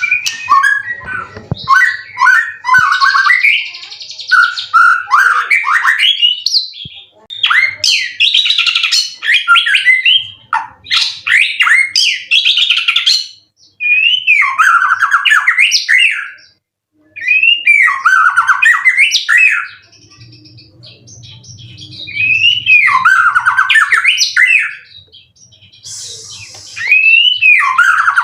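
White-rumped shama singing loud, varied phrases of sweeping whistles and fast trills, each lasting a few seconds, with short pauses between them.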